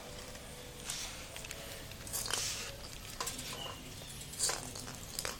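Plastic bags crinkling and rustling as a cat brushes and pushes against them, in several short bursts, the longest about two seconds in.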